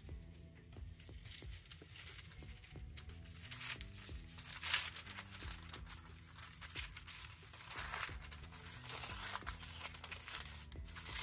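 Scissors snipping through tattoo stencil transfer paper, with the sheet rustling and crinkling as it is turned between cuts; the loudest rustle comes near the middle. Quiet background music with a low, stepping bass line runs underneath.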